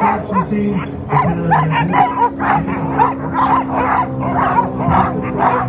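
A team of Alaskan husky sled dogs barking and yipping in quick, overlapping calls, several a second, excited and straining to run, over a steady low hum.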